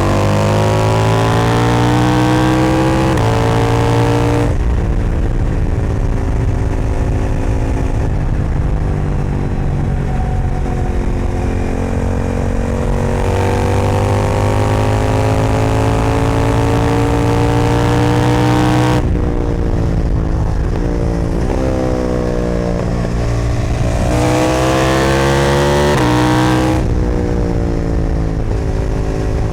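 KTM Duke 990 twin-cylinder engine through an Austin Racing aftermarket exhaust, heard from the saddle. It pulls hard with the revs climbing, steps down at an upshift a few seconds in, then runs lighter and steadier on part throttle. It climbs again, and then several times drops away and picks back up as the bike slows for and powers out of corners.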